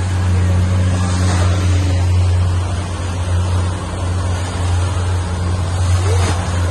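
Outboard motor of a small open motorboat running steadily under way, a constant low drone, with the rush of water along the hull and wake and wind noise.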